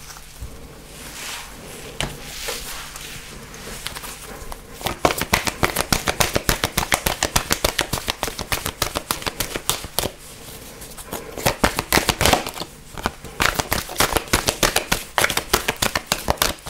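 A deck of oracle cards shuffled by hand. Soft handling at first, then a rapid run of card clicks from about five seconds in, a short pause, and a second run that stops shortly before the end.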